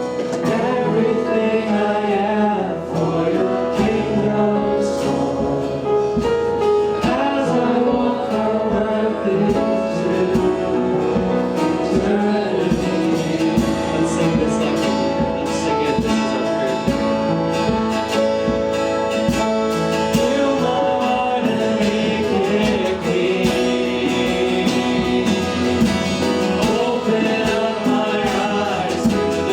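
Gospel-style worship music: voices singing over instrumental accompaniment.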